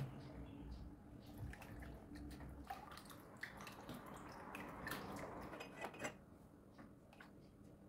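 Light clinks and taps of dishes and utensils handled during kitchen work, scattered irregularly and busiest in the middle, fading lower near the end.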